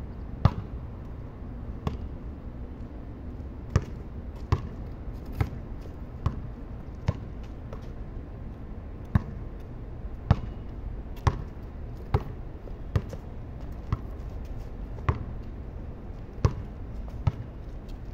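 Basketball bouncing on a concrete court as it is dribbled: single sharp bounces at an uneven pace, roughly one a second, over a steady low outdoor hum.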